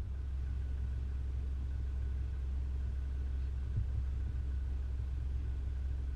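Steady low rumble of a vehicle on the move: an even engine drone with road noise, holding constant throughout.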